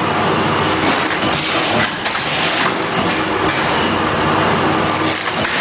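VFS7300FS vertical form-fill-seal packaging machine running: a loud, steady mechanical clatter with hiss.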